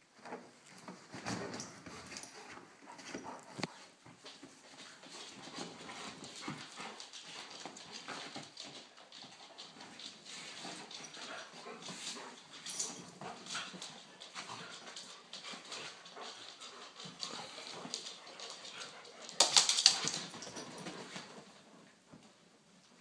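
Two dogs play-wrestling on a couch: continuous scuffling and rustling of paws and bodies on the cushions, with dog vocal sounds. A loud sudden noise comes about three-quarters of the way through.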